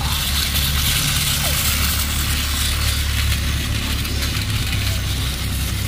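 Battery-powered toy train motors, a Thomas engine and a Plarail Yokosuka Line train, running on plastic track: a steady whirring hum with a high hiss.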